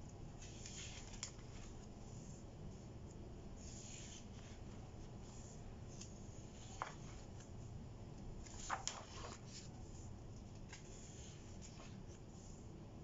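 Pages of a coil-bound paper planner turned by hand: soft rustling and sliding of paper, with a few sharper snaps as a page flips over, the clearest about seven seconds in and twice near nine seconds.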